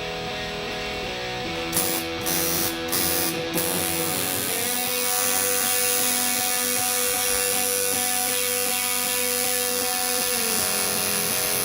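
Electric guitar music: held notes ringing over a steady amplifier hum, with a few sharp hits about two to three seconds in, then a dense sustained chord.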